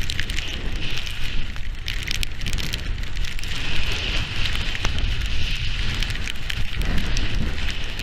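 Storm wind buffeting a GoPro's microphone with a steady low rumble, while rain patters and crackles against the camera housing in many small ticks.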